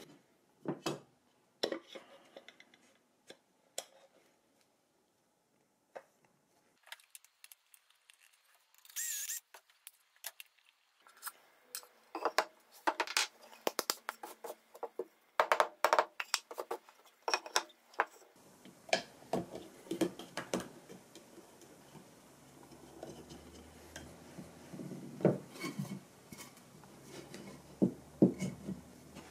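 Scattered clicks, knocks and rubbing from a doweling jig and pine boards being handled on a workbench, sawdust being brushed off the bench, and the drilled boards being pushed together. Mostly quiet for a few seconds near the start, then busier with knocks in the second half.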